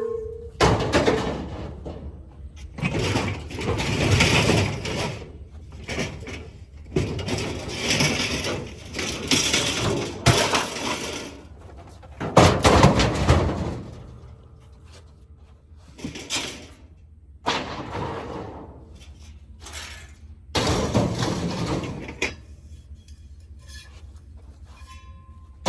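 Pieces of scrap metal being tossed onto a pile: a dozen or so irregular clattering crashes, the loudest about halfway through.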